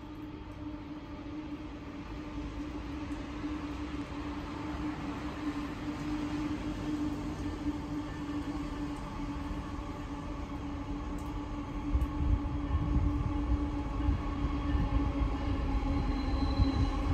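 An approaching train led by three CEY-class diesel locomotives: a steady engine drone growing gradually louder, with a heavier low rumble joining in over the last few seconds.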